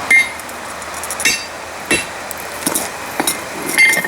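Hand hammer striking hot steel on an anvil, about six blows at an uneven pace, each with a bright metallic ring.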